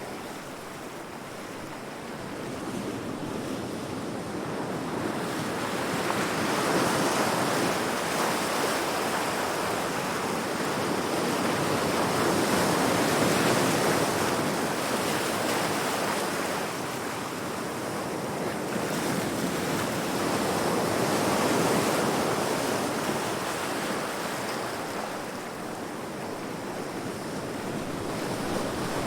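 Heavy sea waves crashing against rocks: a continuous rush of surf that slowly swells and eases, with a surge every several seconds.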